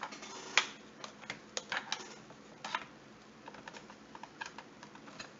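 Irregular sharp plastic clicks and taps from a hand-held RC transmitter's plastic case being handled and its battery door taken off, the loudest click about half a second in.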